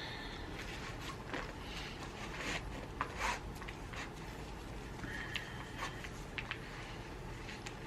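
Faint rustling of clothing with scattered light taps and clicks over a steady low hum.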